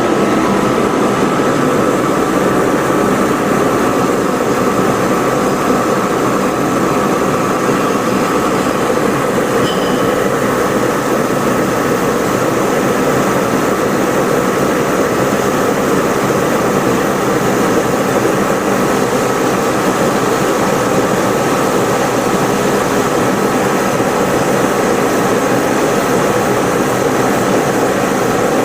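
Precision rubber stripper ring grinder running: a steady, unbroken machine noise with constant tones held throughout.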